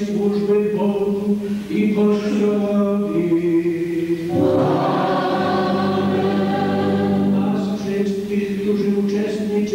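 Liturgical chant in a church: one male voice chants a prayer on a nearly level reciting tone. From a little before the middle, many voices sing together for about three seconds, and then the single chanting voice returns.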